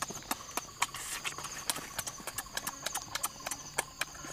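Chewing and lip-smacking as cooked goat meat is eaten off the bone: a quick, irregular run of wet clicks, several a second, over a faint steady high tone.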